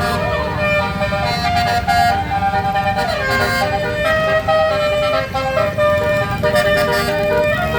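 Basuri-type telolet bus horn, a multi-trumpet musical air horn, playing a tune of held notes that change pitch every half-second or so, with a few sliding notes, over the low noise of the bus's engine.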